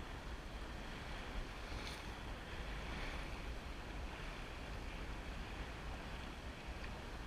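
Wind buffeting the microphone over the steady rush and splash of water along the hull of a Drabant 27 sailboat moving under sail.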